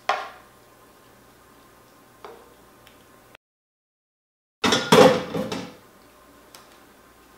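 A frying pan knocking and scraping as cooked ground beef is tipped and spooned out of it into a pie dish with a wooden spoon. A small knock comes about two seconds in, and the loudest clatter comes just after a moment of dead silence, about five seconds in.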